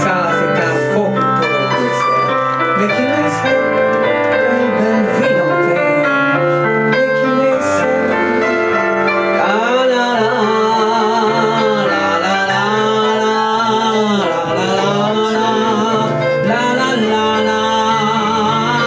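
A song with keyboard accompaniment; about halfway through a singer comes in, holding notes with a strong, wavering vibrato.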